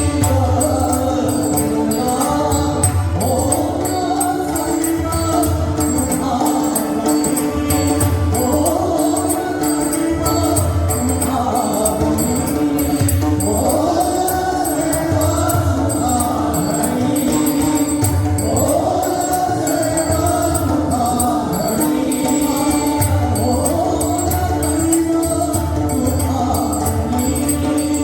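Marathi devotional abhang (bhajan) being sung, voices rising and falling in long melodic phrases over a steady held drone. Pakhawaj and tabla keep a regular beat underneath, with a bright metallic jingle of small hand cymbals.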